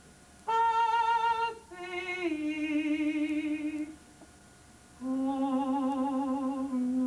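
A woman's low voice singing slow, held notes with vibrato, unaccompanied. A high note comes first, then two lower notes stepping down, a short pause, and a long low note held to the end.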